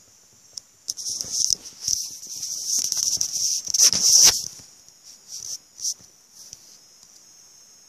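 Handling noise on a tablet's microphone as the tablet is fumbled and dropped: a few seconds of scraping, rubbing rustles ending in a loud knock about four seconds in, then a few smaller knocks, over a steady high hiss.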